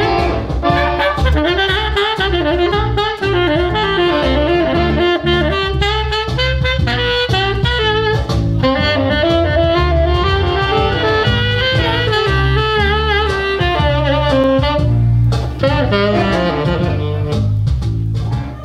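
Tenor saxophone playing a jazz melody over bass and drums, the music dropping off near the end.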